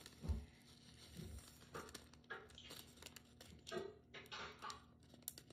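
Faint handling noises: two soft bumps in the first second and a half, then scattered light rustling and crinkling.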